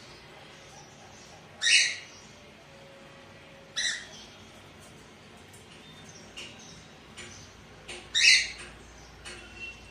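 Cockatiel screeching: three short, harsh, loud calls, the loudest near the end, with a few softer chirps between them.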